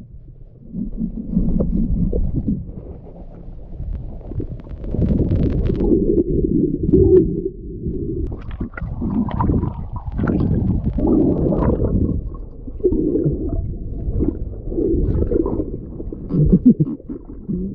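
Muffled, low rumbling water noise picked up underwater by a GoPro in its waterproof housing, swelling and fading in waves, with a few faint clicks.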